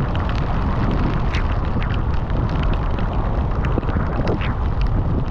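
Waterfall rushing in a loud, steady noise, heaviest in the low end and flecked with small crackles of splashing water.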